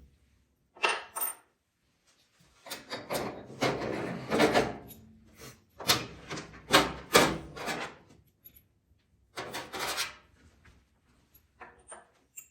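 Scattered bursts of rubbing, scraping and light clinking as parts are handled and worked loose, with short quiet gaps between the bursts.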